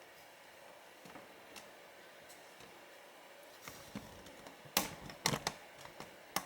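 Handling noise from the camera being moved and re-aimed. A few faint clicks come first, then a quick run of sharp clicks and knocks from about four to six and a half seconds in.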